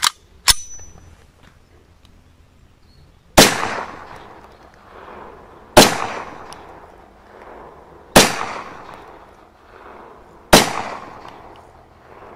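Bruni 92 top-firing blank pistol (a Beretta 92 replica) fired four times, about two and a half seconds apart, with alternating Victory Sport and Fiocchi 9 mm blanks, each shot trailing off in a long echo. Two short clicks come just before the first shot.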